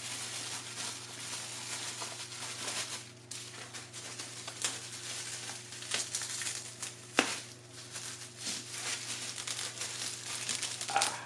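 Plastic bubble wrap crinkling and rustling as hands turn and pull at it, with many small sharp crackles.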